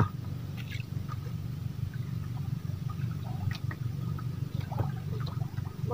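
Faint water drips and small splashes over a low, steady rumble.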